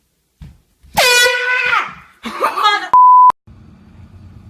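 Air horn blasts once, a loud steady blare lasting about a second. A person's startled yell follows, then a short steady bleep with sharp edges, as used to censor a word.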